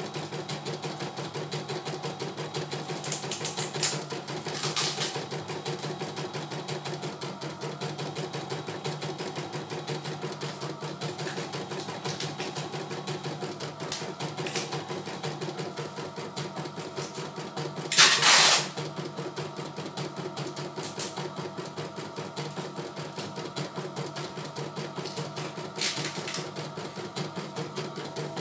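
CNY E900 computerised embroidery machine stitching a design in rapid, steady strokes, with its motor humming. A few brief louder rasping noises cut in, the loudest about two-thirds of the way through.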